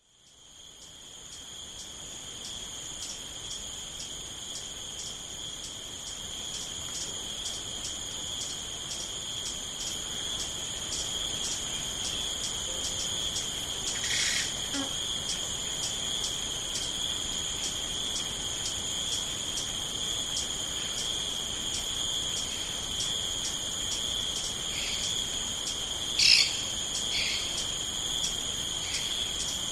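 Rainforest ambience: insects trilling steadily at a high pitch, fading in over the first couple of seconds, with a few short bird calls, one near the middle and a louder one late on.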